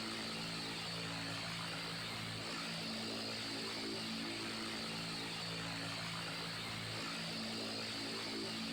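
Electric fan running steadily: an even rush of moving air over a low motor hum whose tones slowly swell and fade.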